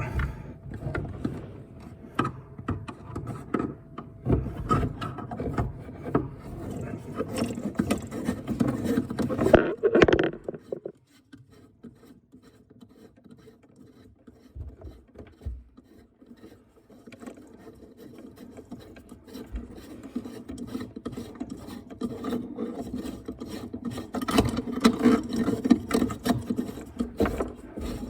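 Irregular scraping, rubbing and clicking of hand tools and metal fittings under a sink as an old faucet's fittings are worked loose and unscrewed, with a quieter spell midway.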